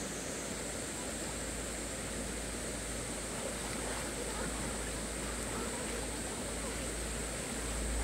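Shallow rocky mountain stream flowing, a steady rush of water with a constant high hiss over it.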